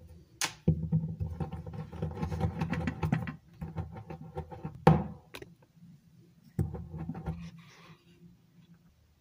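A palm rolling Play-Doh back and forth on a tabletop. It makes a rubbing, rumbling sound carried through the table in two spells, the first about three seconds long and the second about a second long, with a sharp knock on the table about halfway through and a click just before the first spell.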